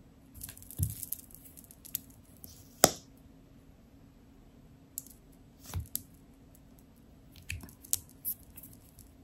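Small cosmetic items and their packaging being handled: scattered light clicks and brief rustles, with one sharp click about three seconds in.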